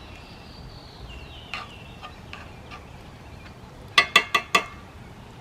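Bird calls: four loud calls in quick succession, each with several pitches stacked, about four seconds in, with fainter, thinner calls before them.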